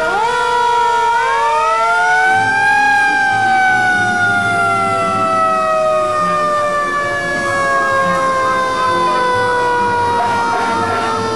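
Fire engine sirens, at least two overlapping, each winding up quickly in pitch and then coasting slowly down over several seconds, the slow run-down of mechanical sirens; one winds up again near the end. Truck engines rumble underneath.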